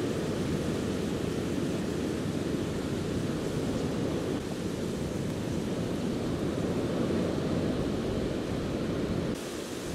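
Steady low rushing noise with no distinct events, easing slightly just before the end.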